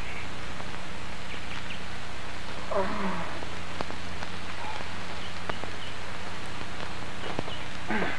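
Steady hiss with a low hum underneath, with a few faint clicks and two brief rising sounds, one about three seconds in and one near the end.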